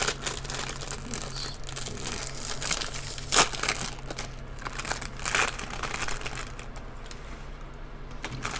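Thin clear plastic parts bag crinkling and crackling as hands work it open and pull a plastic model-kit sprue out. There are sharp crackles throughout, the loudest a little over three seconds in.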